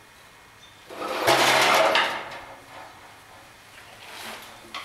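The hinged burner arms of a front-mounted flame weeder being swung down from upright: a loud mechanical rattle with a low hum, starting about a second in and lasting about a second, then a fainter knock near the end.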